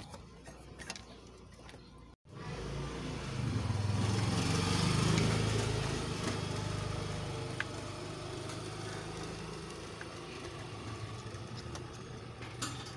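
A motor vehicle engine running past, building up after a brief drop-out about two seconds in, loudest about five seconds in, then slowly fading.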